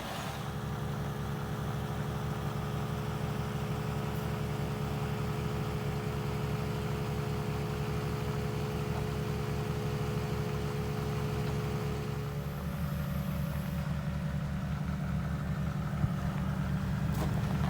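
A vehicle engine idling steadily with an even low pulse, its tone shifting slightly about twelve seconds in.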